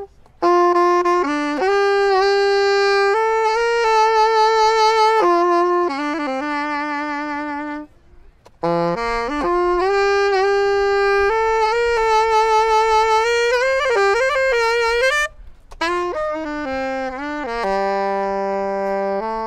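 Saxophone played live into a microphone: a solo melodic line of held and moving notes, the long notes with vibrato. Phrases break off briefly about 8 and 15 seconds in.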